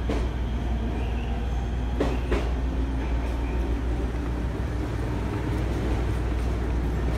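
Stationary electric multiple unit trains of the ET127/E127 type standing at the platform with their onboard equipment running: a steady low hum, with a couple of faint clicks about two seconds in.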